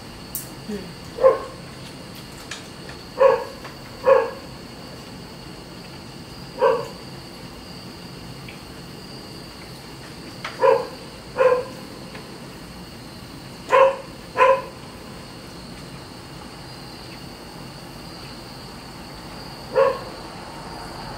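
A dog barking single barks, about nine in all, at irregular gaps and sometimes two in quick succession. Under them is the steady high chirring of insects.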